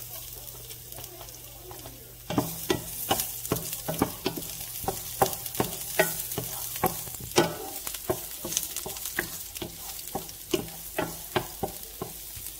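Chopped garlic sizzling in hot cooking oil in a square nonstick pan. From about two seconds in, a wooden spatula stirs it, knocking against the pan two or three times a second.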